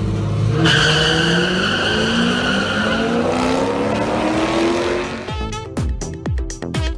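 Cars launching in a drag race: engines pulling hard, their note rising steadily for about five seconds, with a high squeal over it in the first few seconds. About five seconds in, a run of sharp hits with falling pitch takes over.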